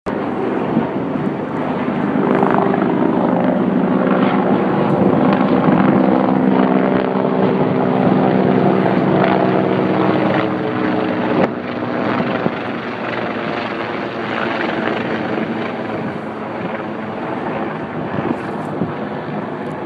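Military helicopters flying overhead: a steady rotor and engine drone carrying several held tones, loudest in the first half. The tones drop away about eleven seconds in, leaving a weaker drone.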